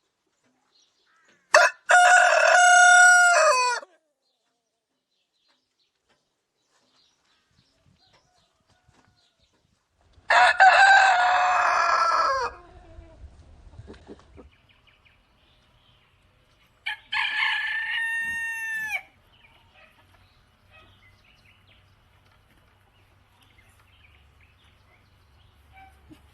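Rooster crowing three times, each crow a short opening note followed by a long held call that drops in pitch as it ends.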